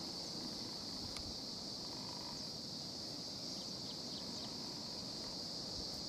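Steady, high-pitched chorus of insects such as crickets or cicadas, an unbroken shrill hum, over a low background rumble.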